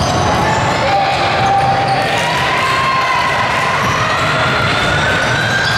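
Basketball game in a gym: a ball bouncing on the court amid a steady din of court and crowd noise, with a thin wavering tone that slowly climbs over the second half.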